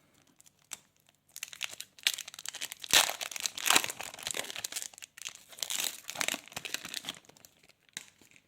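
Trading card pack wrapper being torn open and crinkled. The crackling starts about a second in, is loudest around three seconds in, and fades out near the end.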